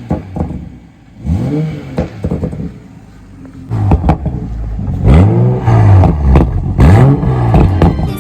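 A vehicle engine revving up and falling back again and again, louder in the second half, with some clatter.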